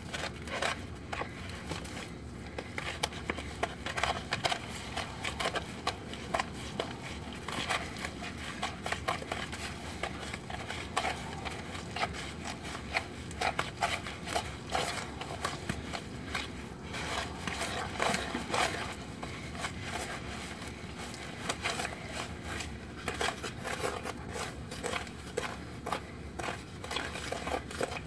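Wooden spoon stirring creamed butter, sugar and egg in a plastic bowl: irregular scraping and knocking strokes against the bowl.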